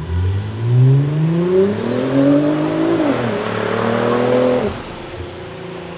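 Nissan GT-R R35's twin-turbo V6, breathing through a full Akrapovic exhaust, accelerating hard with the revs climbing. There is a quick upshift about three seconds in, the revs climb again, and the engine comes off the throttle shortly before the end.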